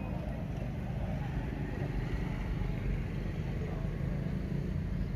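Steady low background rumble with faint voices.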